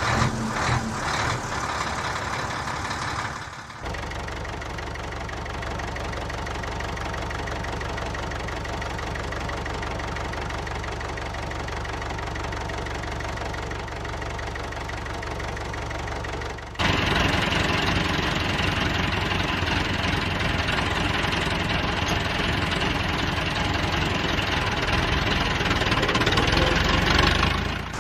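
Steady engine running sound with a low knock. It changes abruptly about 4 seconds in, and again about 17 seconds in, where it becomes louder and brighter.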